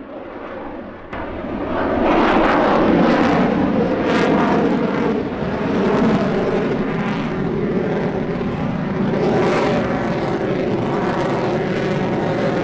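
F-16 fighter jet engine noise, quieter for the first couple of seconds, then loud and steady, swelling and easing several times.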